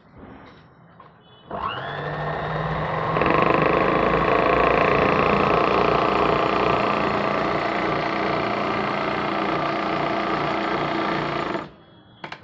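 Motorized sewing machine starting up about a second and a half in, its whine rising as it picks up speed and growing louder a moment later, then running fast and steadily before stopping suddenly near the end.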